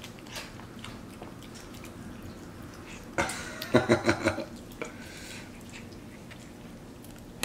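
Capuchin monkey licking sauce off a plate and eating, with faint wet mouth sounds and light taps of the plate. A short burst of laughter comes a little after three seconds in.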